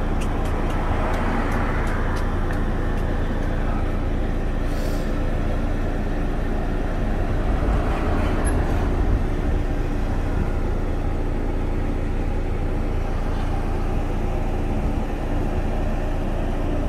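A steady low mechanical drone with a constant hum, unchanging throughout, with a few faint clicks in the first few seconds.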